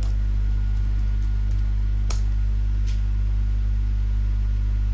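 Steady low electrical mains hum on the recording, with a few computer mouse clicks; the loudest click comes about two seconds in.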